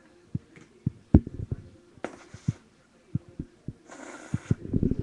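Irregular dull thumps and knocks of hands handling small objects close to a webcam microphone, with two short hissing bursts about two and four seconds in.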